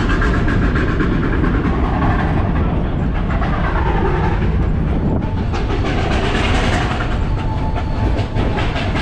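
Narrow-gauge train running, heard from inside an open-sided passenger car: a steady rumble of the wheels with fast clickety-clack over the rail joints.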